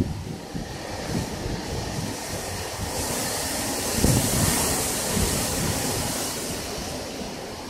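Cyclone-force wind blowing hard through coconut palms and trees, swelling into a stronger gust in the middle, with the wind buffeting the phone's microphone.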